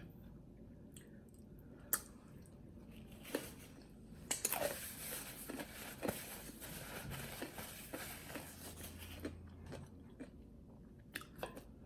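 A person chewing food close to the microphone, with moist crunching that thickens through the middle and a few sharp clicks.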